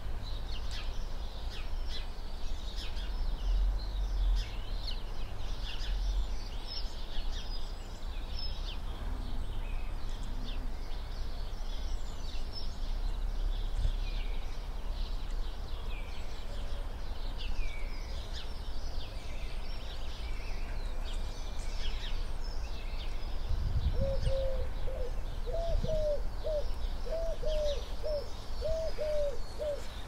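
Small garden birds, tits among them, calling with short high chirps and notes throughout. About three-quarters of the way in, a pigeon starts cooing in a low, evenly repeated phrase, over a steady low rumble.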